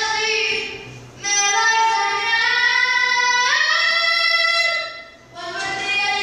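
A child singing alone without accompaniment, holding long notes: one phrase ends about a second in, a long held phrase follows and steps up in pitch partway through, then after a short breath near the end a new phrase begins.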